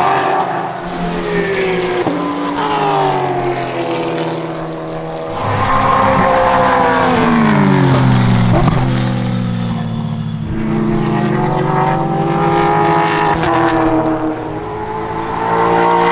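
MARC Ford Focus race car's 5.0 litre Coyote V8 running at racing speed, its revs rising and falling through gear changes. The pitch drops steeply about eight seconds in, then climbs again.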